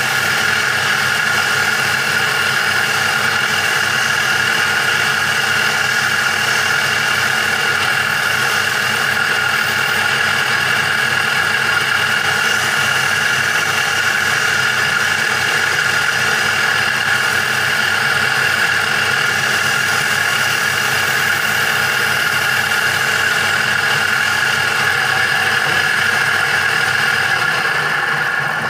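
Wood lathe running steadily with a constant high-pitched whine over its motor hum.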